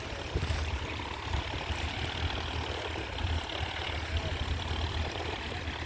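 Tractor engine running in the field, a steady low rumble.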